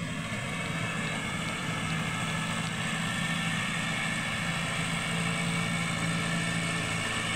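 Massey Ferguson 385 tractor's diesel engine running steadily under load while pulling a rear-mounted tiller through the soil.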